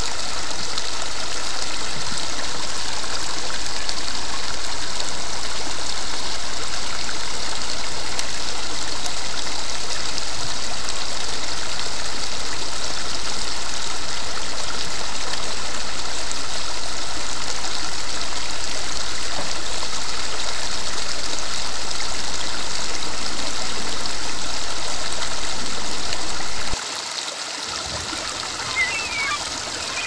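Shallow river water rushing steadily over and between rocks in a small riffle. About 27 s in it drops suddenly to a softer trickle, and a few birds chirp near the end.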